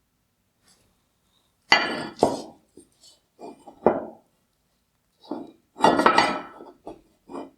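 Disassembled headlight parts clinking and knocking as they are handled and set down on a hard surface, in three short clusters of sharp knocks.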